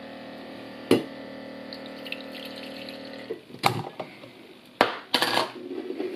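Lavazza A Modo Mio electric milk frother humming steadily while it froths milk, with coffee being poured from a stainless steel cafetière into a mug. The frother cuts off about three seconds in, followed by a few sharp clicks and a short clatter as its lid is lifted off and set down.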